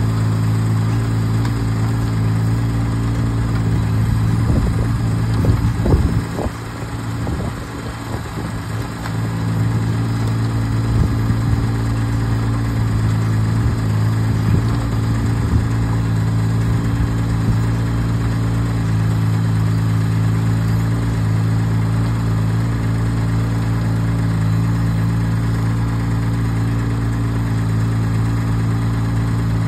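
Engine of a HAIHONG CTX8010 mini excavator running steadily while the arm and bucket dig soil, with some knocks and scrapes between about four and ten seconds in. The hydraulics are working again after a blocked hydraulic fitting was cleared.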